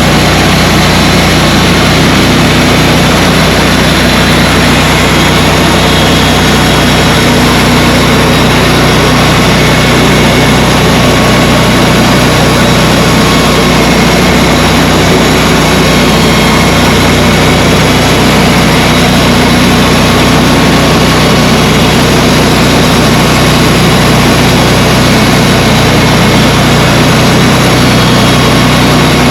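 Sawmill engine running loud and steady at constant speed, with a dense hiss over it throughout.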